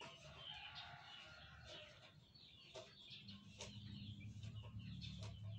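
Faint chirping of small birds and clucking of a chicken, with a couple of light clicks about three seconds in and a low steady hum rising from about the same moment.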